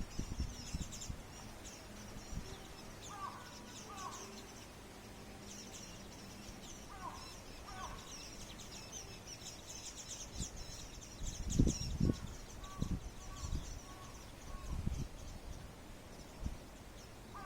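A flock of small birds twittering in a large camellia tree, a constant chatter of thin, high chirps. Every few seconds a louder bird gives a pair of short, lower calls. A few low thumps come partway through.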